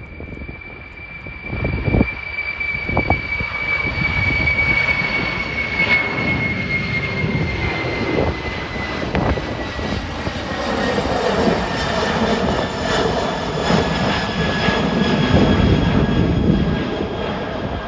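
Boeing 747-400 freighter's four jet engines at takeoff power as it climbs out overhead: a steady roar that swells about two seconds in, with a high whine that slowly falls in pitch.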